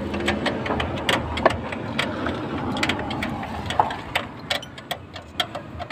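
Irregular sharp clicks and knocks of hand work on a car dashboard's metal frame and plastic parts, over a steady low hum.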